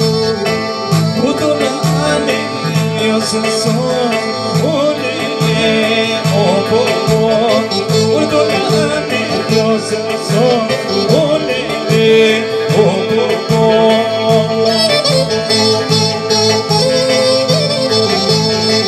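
Live Albanian folk wedding music: a clarinet plays a wavering, heavily ornamented melody over an electronic keyboard accompaniment with a steady repeating rhythm in the bass. A man sings into a microphone at times.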